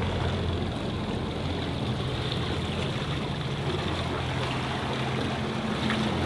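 Motorboat under way: a steady rush of water along the hull over a low engine hum.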